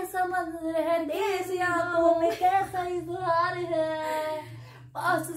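A woman singing a Hindi film song unaccompanied, with long held notes that waver and slide between phrases.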